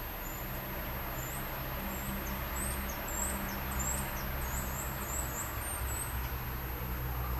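A squirrel gnawing at walnut shells, over a low steady rumble. A run of high, quick chirps comes and goes over the first six seconds or so.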